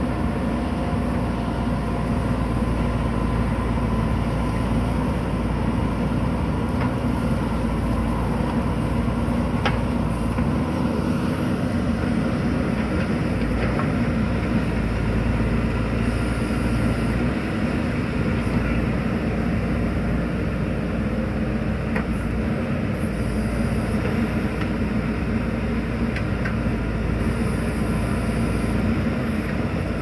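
JCB 3DX backhoe loader's diesel engine running steadily under digging load as the backhoe arm works, with a few short knocks scattered through.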